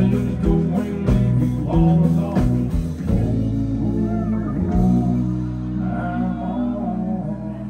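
Live country band of electric guitars, pedal steel and drums playing loudly. About halfway through the drums stop and the band holds a sustained closing chord that slowly fades.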